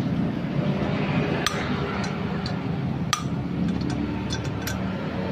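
Light metallic clicks and clinks as the valves of a small Sogo petrol engine's cylinder head are pressed and knocked against their seats, a few single ticks and then a quick cluster near the end, over a steady low hum.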